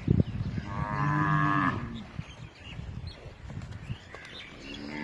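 Cattle mooing: one long, low moo about a second in, and a second moo starting near the end.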